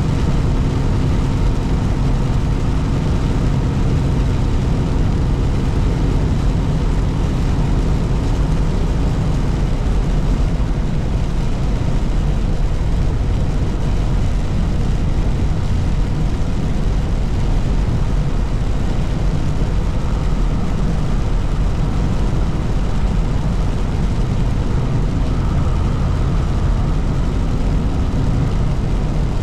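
Steady low drone of a truck's engine and tyres on the highway, heard inside the cab.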